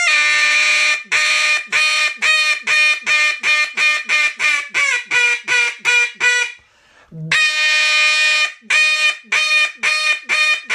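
Duck call blown as a hail call (high ball): a long loud opening note, then a fast run of short notes, about two to three a second, stepping down in pitch. A breath pause comes about six and a half seconds in, and then a second long note starts another run.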